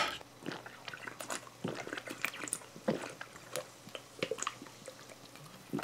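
A person drinking from a plastic cola bottle: soft, irregular swallowing gulps and small mouth and bottle clicks.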